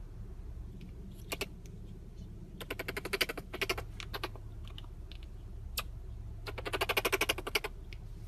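Marmoset nibbling at a plush toy: sharp clicks, a few single ones and two quick runs of about a dozen a second, over a low steady hum.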